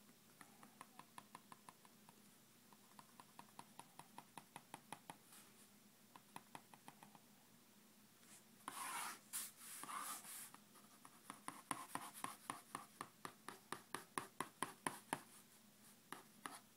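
Faint, quick sketching strokes of a drawing tool scratching on paper, coming in runs of several short strokes a second. About halfway through come two longer scraping strokes, then a faster run of short strokes.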